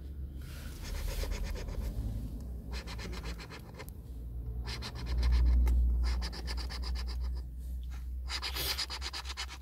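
A coin scraping the coating off a paper scratch-off lottery ticket, in several short bouts of rapid strokes with pauses between. A low rumble swells up about halfway through.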